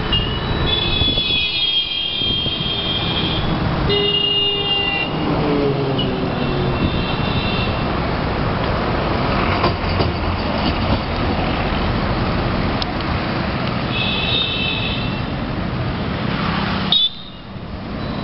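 Busy city road traffic: a steady din of engines and tyres, with vehicle horns honking several times, about a second in, around four and six seconds, and again near fourteen seconds. The noise drops suddenly near the end.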